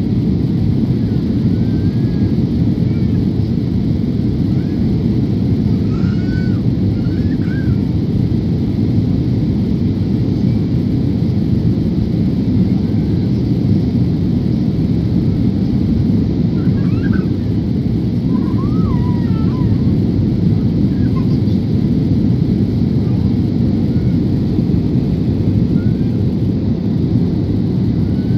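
Airliner cabin noise on the landing approach: the engines and rushing air make a loud, steady, low noise. A few faint, brief, higher sounds come over it now and then.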